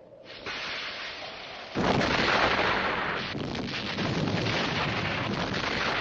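A cannon's fuse is lit with a cigar and starts to hiss. Almost two seconds in, a sudden, loud, deep rumbling blast-like noise sets in and carries on.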